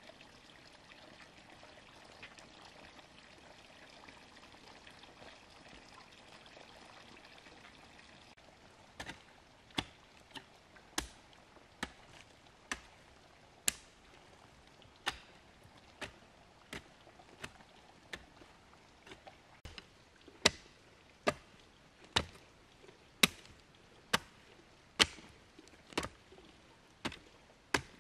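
A faint steady trickle for the first eight seconds or so, then a run of sharp chopping strokes, irregular, about one to two a second, the loudest ones in the second half.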